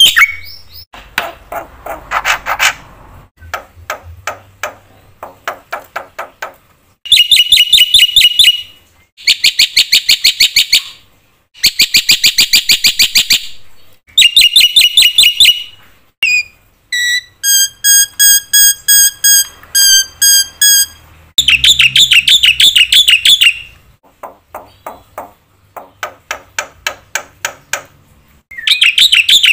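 Black-winged myna (jalak putih) in full song, a long varied medley packed with mimicked calls of other birds. Dense bursts of fast chirps alternate with runs of quick dry clicking notes, and about two-thirds of the way through comes a run of clear whistled notes repeated evenly several times a second.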